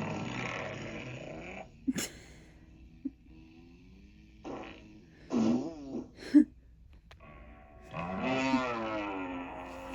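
Comedic fart sound effect, a big hippo fart, played by an Amazon Echo smart speaker. It comes as a string of buzzy, blaring bursts with wobbling pitch, including a short sharp crack about two seconds in, and ends in one long drawn-out fart that falls in pitch.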